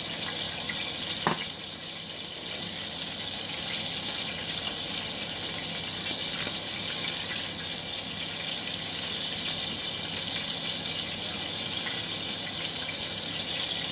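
Steady high-pitched hiss, with a single sharp click about a second in.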